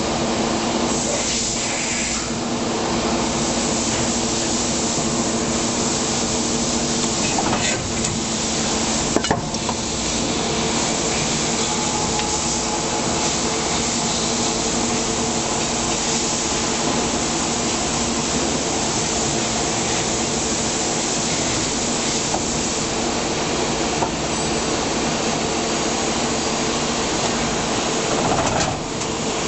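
Plastic injection moulding machine running: a steady hum in several tones with a constant hiss, broken by a few sharp clacks about eight and nine seconds in and once more later.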